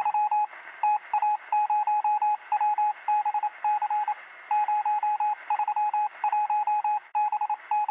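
Morse-code-style beeping: a single tone keyed on and off in quick short and longer pulses, over a hiss of radio static.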